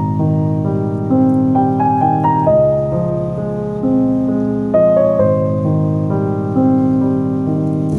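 Background music: a soft piano melody with held chords, a new note or chord about every second.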